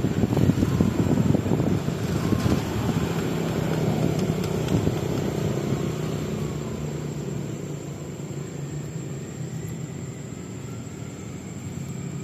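A steady low engine-like rumble with a humming tone, loudest in the first few seconds and growing quieter in the second half.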